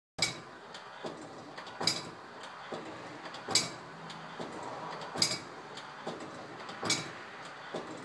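Pistons of a steampunk jockeybox cycling: a sharp clack about every 1.7 seconds, with lighter clicks in between, over a steady hiss.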